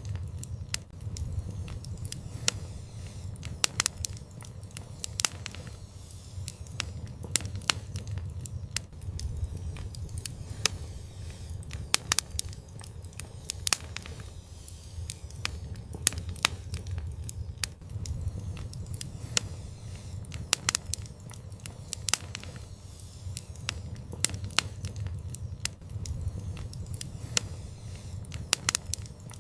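Wood fire crackling, with sharp irregular pops and snaps over a steady low rumble of burning flames.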